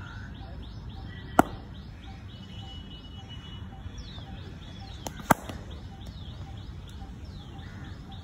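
A bird chirping over and over in short, high, down-sweeping notes about three a second, with two loud sharp cracks of a cricket ball struck off a bat, about a second and a half in and about five seconds in.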